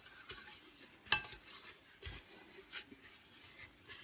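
Cleaning cloth rubbing around the inside of a metal pot, wiping off grease without water, with a few light clinks and knocks of the pot, the sharpest about a second in.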